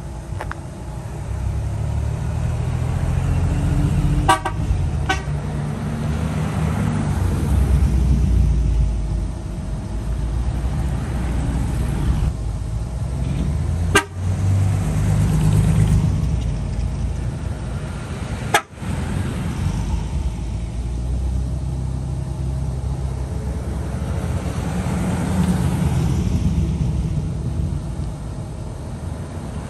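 Classic 1950s cars driving past one after another, their engines growing louder and fading as each goes by. Two short car-horn toots sound about four seconds in.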